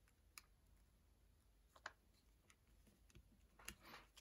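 Near silence broken by a few faint clicks and ticks as small adhesive sparkle embellishments are peeled from their backing sheet and pressed onto a paper card, with a small cluster of clicks near the end.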